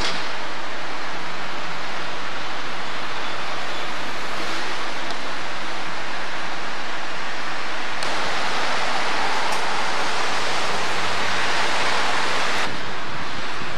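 Steady, loud rushing noise. It gets louder and brighter about eight seconds in, then drops back abruptly about a second before the end.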